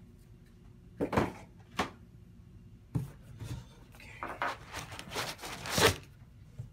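Packing material being handled in a cardboard shipping box: foam blocks rubbing and scraping against cardboard, with plastic rustling. A few short scrapes come in the first three seconds, then a longer stretch of rustling from about four seconds in, loudest just before the end.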